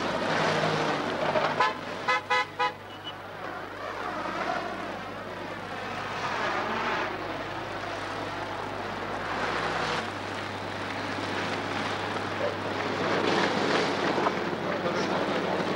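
Street traffic noise, with vehicle engines running beside the road and a quick run of about four short horn beeps about two seconds in.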